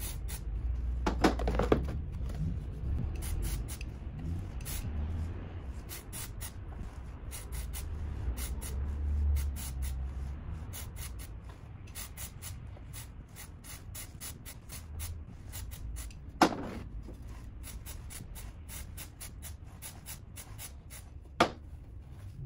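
Aerosol chain cleaner sprayed onto a motorcycle drive chain in many short hissing bursts as the wheel is turned by hand, with a low handling rumble underneath. Two sharp knocks come in the second half.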